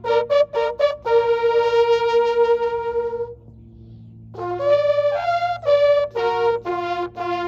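A bugle call played by several bugles in unison: a run of short notes, then one long held note, a break of about a second, then more short and held notes.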